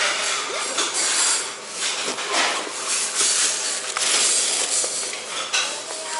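Clatter of dishes and cutlery over a steady hiss, with a few sharp clinks.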